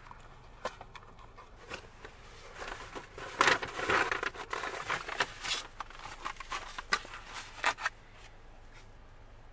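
Takeout packaging being handled and opened: paper bag and cardboard box rustling and crinkling, loudest about halfway through, followed by a few sharp clicks.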